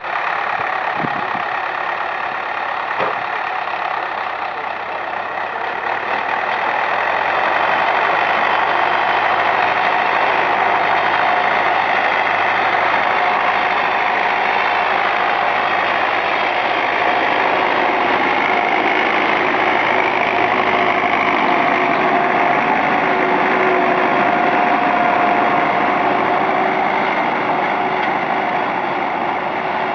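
Belarus MTZ-80 tractor's naturally aspirated four-cylinder diesel engine working under ploughing load, running steadily and growing louder about seven seconds in.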